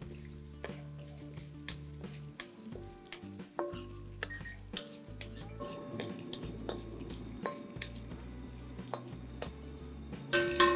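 Oil sizzling in a kadai as a tempering of mustard seeds, dals, curry leaves, chillies and cashews fries, the cashews being roasted golden. A spatula scrapes and clicks against the pan at irregular moments as it is stirred, with a louder run of clicks near the end.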